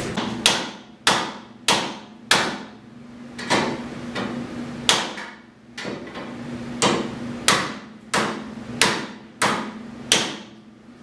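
Hand hammer striking repeatedly in a pickup truck's engine bay: about a dozen sharp blows at an uneven pace, each followed by a short ring.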